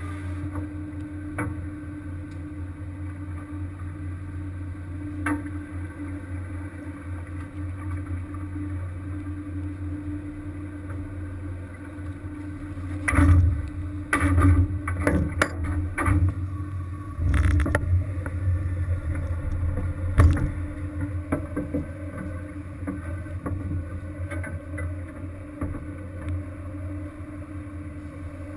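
Steady low drone of a crab-fishing vessel's engine. From about halfway through, a run of loud knocks and clatters lasts several seconds.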